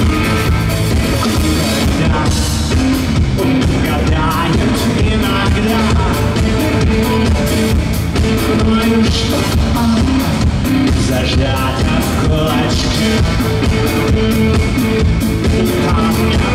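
Rock band playing live and loud: a male lead singer over electric guitar, bass and a steady drum-kit beat.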